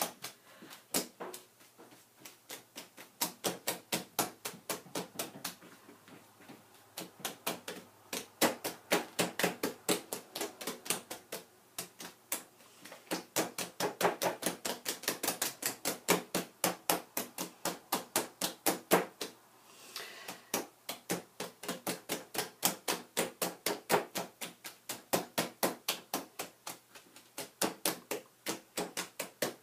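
Wet, soapy hands patting wool roving flat, a quick run of soft slaps at about four a second with a few brief pauses. It is the wet-felting stage where the fibres are pressed together so they start to adhere.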